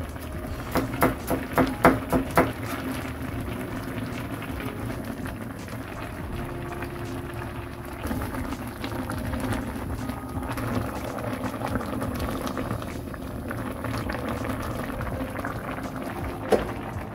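Kimchi broth with noodles bubbling at a steady boil in a stainless steel pan. About a second in comes a quick run of sharp clicks as a green chili is cut over the pot, and there is one more click near the end.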